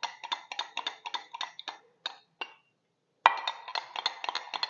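A teaspoon stirring honey into ginger and lemon juice, clinking rapidly against the side of its container, several clinks a second, with a pause of about a second past the middle before the stirring resumes.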